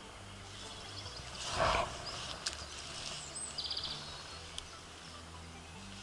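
Small birds chirping faintly, with a short rising call and a quick high trill about three and a half seconds in, over a faint low hum; a brief rustle about a second and a half in is the loudest sound.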